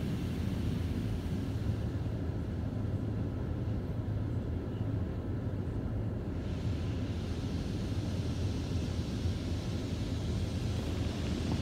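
Automatic car wash heard from inside the car: a steady low rumble, with the hiss of foam and water spraying onto the windshield fading about two seconds in and coming back just past halfway.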